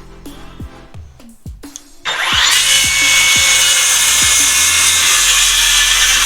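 Cordless FLEX 24V in-line circular saw spinning up about two seconds in and then cutting steadily through wood, loud, stopping sharply at the end, over background music with a beat.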